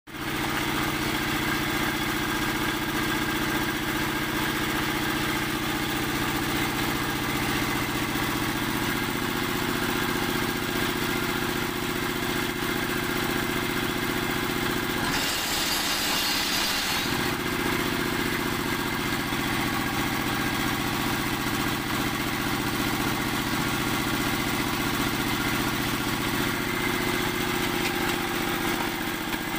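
Small stationary engine running steadily, powering a concrete block-making machine. About halfway through, a short burst of gritty noise briefly covers it.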